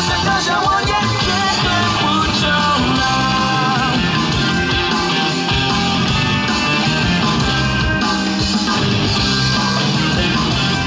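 Loud rock-style music with a singing voice.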